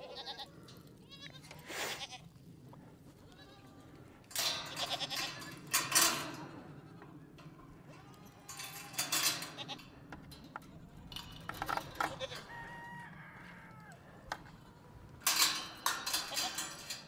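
Goats bleating, several separate loud calls a few seconds apart.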